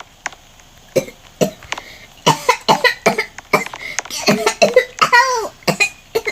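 A child's voice making wordless sounds: sharp coughs starting about a second in, then pretend sobbing with a rising-and-falling wail near five seconds.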